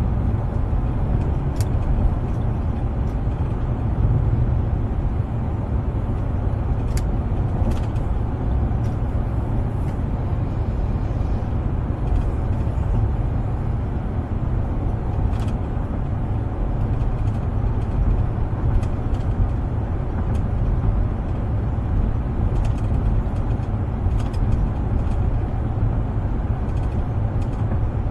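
Steady low rumble of road and engine noise inside an SUV's cabin while driving, with scattered light clicks.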